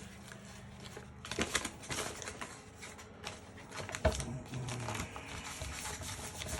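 Irregular clicks, taps and rustles of spray-paint art supplies being handled, with one sharper knock about four seconds in.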